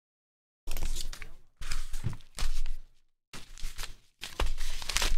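Handling noise of card packaging: rustling and crinkling in four bursts about a second long, starting a little under a second in.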